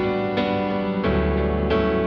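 Instrumental background music, with a new note struck about every two-thirds of a second over sustained chords.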